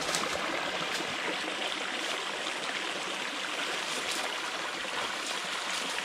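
Small creek running over rocks and a little cascade: a steady rush of flowing water.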